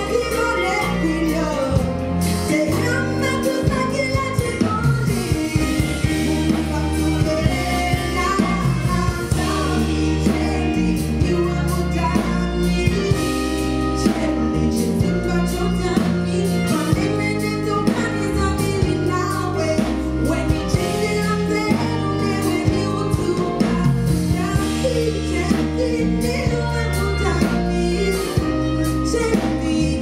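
A woman singing lead over a live band, with a steady beat and bass line.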